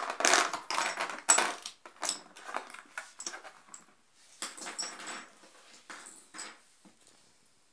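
Beyblade Burst tops' burst-apart parts clattering and clicking against a plastic basin as they are scooped up by hand. A dense rattle for about two seconds, then scattered clicks that die away.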